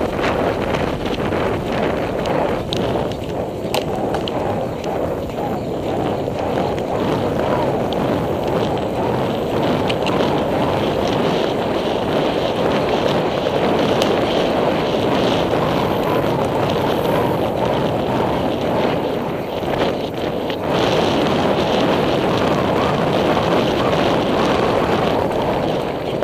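Steady wind rushing over a helmet-mounted camera's microphone as a horse gallops cross-country.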